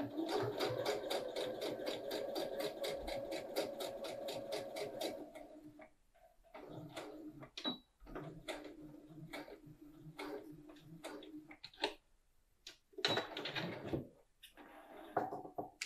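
Electric domestic sewing machine stitching a seam through fabric: rapid, even needle strokes for about six seconds, then slower, quieter stitching, with a short louder burst about thirteen seconds in.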